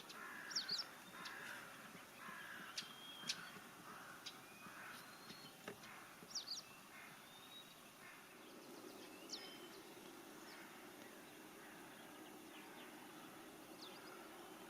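Faint outdoor birdsong: many short high chirps and quick sweeping calls, with a run of harsher, lower calls in the first few seconds. A low steady hum comes in about eight seconds in.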